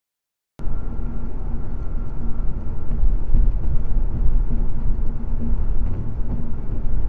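Road and wind noise inside a car driving at highway speed, picked up by a dash cam: a steady low rumble that starts suddenly about half a second in, after silence.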